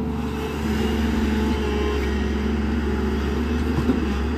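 JCB NXT 205 tracked excavator's diesel engine running steadily as the arm and bucket work, a little louder from about half a second in. A single brief knock sounds near the end.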